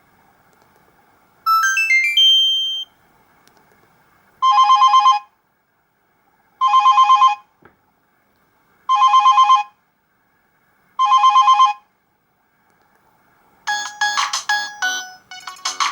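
Alcatel 2000X ringtones played on a Samsung GT-B2710 mobile phone: a short rising run of beeps, then four short warbling trills about two seconds apart like a telephone ring. Near the end a busier electronic melody begins.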